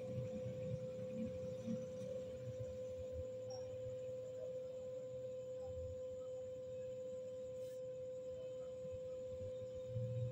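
A steady electronic tone held at one unchanging pitch, over a faint low rumble of room noise.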